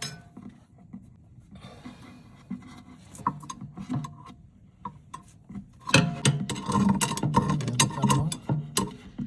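Scraping, rubbing and knocking of hands and tools working on a garbage disposal under a kitchen sink. The sounds are sparse at first and become a dense run of clatter about six seconds in.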